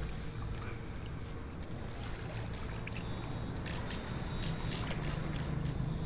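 Low, steady hum of a radio-controlled boat's 12 V 775 brushed electric motor running on the water, with a few faint clicks.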